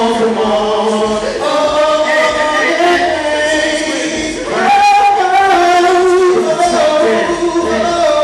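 Loud sung vocals with music: several voices singing a melodic line with long held notes.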